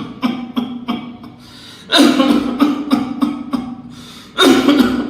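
A man coughing in short bouts of several small coughs, with no deep breath before each bout, about every two and a half seconds. Each bout starts with a strong cough and trails off in quicker, weaker ones. This is the cough pattern of an irritant deep in the lungs, as in interstitial lung disease, pulmonary oedema, pulmonary fibrosis or pneumonia.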